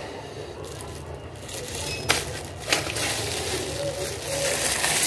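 Clear plastic packaging bag crinkling and rustling as a utensil is pulled out of it, louder from about two seconds in, with a couple of sharp crackles.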